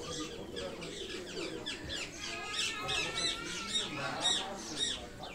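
Many birds chirping and squawking together, with a run of loud, short, high chirps in the second half.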